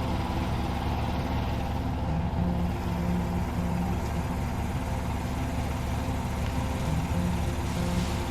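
Tractor engine running steadily at a constant speed, with a low, even beat.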